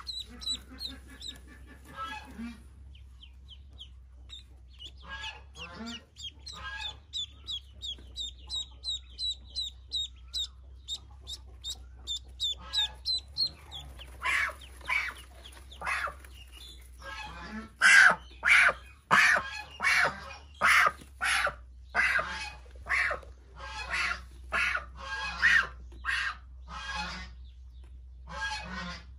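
Pekin ducklings peeping. A quick run of high, thin peeps fills the first half, then louder, harsher calls come about once or twice a second for the rest.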